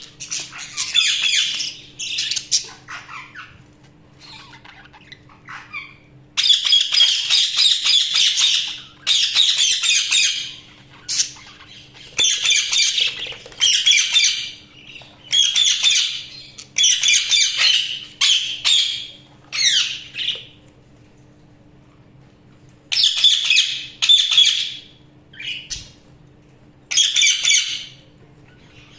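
Budgerigars chattering and squawking in bouts of one to two seconds, separated by short pauses.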